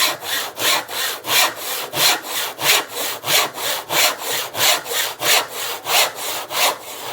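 Hand saw cutting through timber in steady, even back-and-forth strokes, about three a second.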